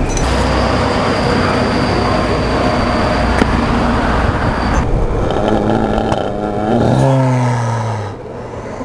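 A steady rushing noise, then from about five seconds in a skater groaning in pain, his voice sliding down in pitch, after his skateboard has struck his knee.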